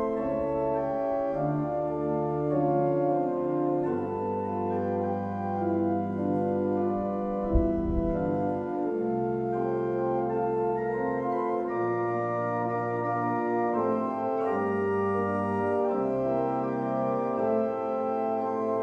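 Slow organ music of held chords that change every second or two, with a single low thump about halfway through.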